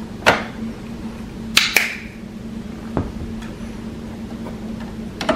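Several light plastic clicks and knocks as the empty ink bottle is pulled from the printer's ink tank and the tank cap is handled, the loudest pair about a second and a half in, over a steady low hum.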